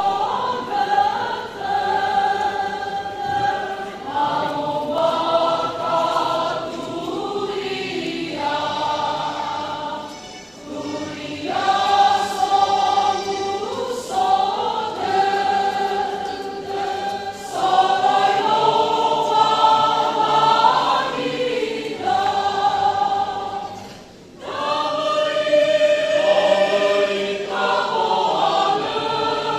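Church choir of pastors singing a hymn in several-part harmony, in long held phrases with brief pauses between them.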